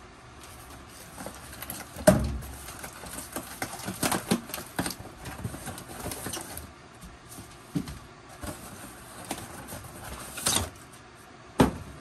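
Cardboard box and packing being handled on a workbench: rustling and scraping with scattered knocks, a loud thump about two seconds in and two more near the end.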